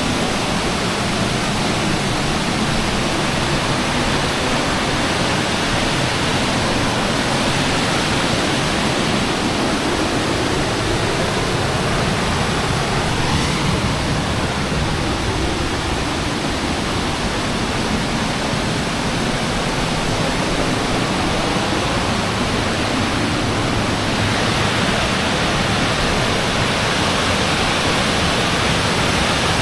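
Waterfall rushing: a loud, steady roar of falling water that holds unchanged throughout.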